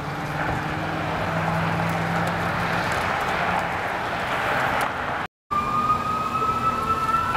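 Fire truck's Detroit Diesel two-stroke V8 running as it approaches, a steady low engine drone under a swelling rush of engine and road noise. After a brief break in the sound, a siren comes in as one steady tone slowly rising in pitch.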